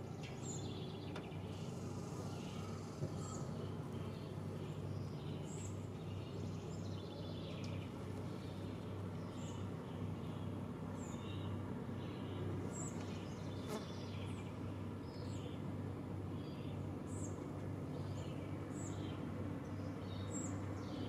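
Small birds chirping: short, very high chirps repeated every second or two, with fainter calls in between, over a steady low hum.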